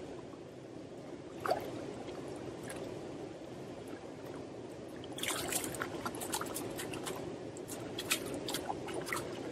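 Splashing and dripping water as a barbel is handled in the shallows at the river's edge, over the steady rush of the river. A single splash comes about a second and a half in, then a run of splashes from about five seconds in.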